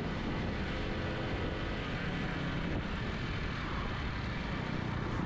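Honda C50 Super Cub's 49cc single-cylinder four-stroke engine running steadily under way, with wind rushing across the microphone.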